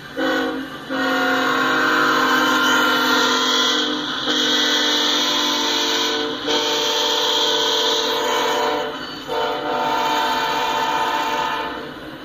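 Freight diesel locomotive air horn sounding a multi-note chord in a series of long blasts with brief gaps, the warning for the grade crossing, over the passing train's running noise.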